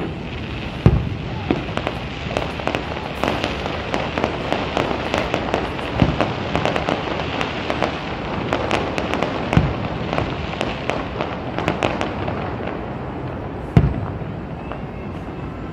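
Fireworks going off: a steady crackling of many small bursts, with four heavier booms, the loudest about a second in and another near the end.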